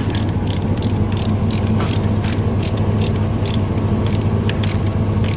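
Hand ratchet clicking in short uneven runs as a bolt on the well casing's seal is tightened, over a steady low hum.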